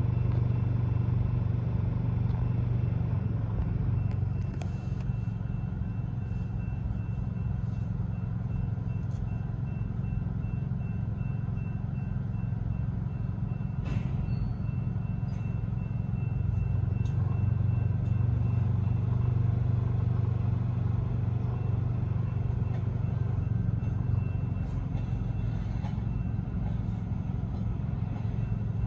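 Freight train rolling through a grade crossing, heard from inside a stopped car as a low, steady rumble.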